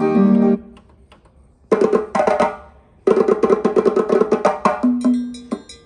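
Music playing from CD through the Panasonic RX-D10 boombox's built-in speakers while the tracks are skipped. A held keyboard passage cuts off about half a second in. After a near-silent gap with faint ticks, a brief snatch of another track starts and breaks off, and then a new track begins with a quick, woody percussive rhythm.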